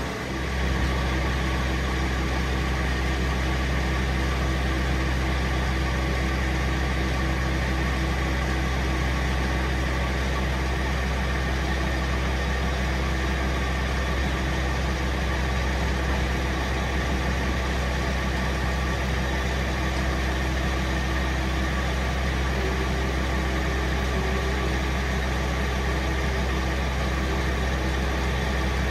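A diesel engine idling steadily.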